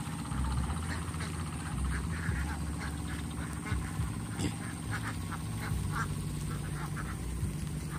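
A flock of laying ducks quacking, many short calls one after another, over a low steady hum.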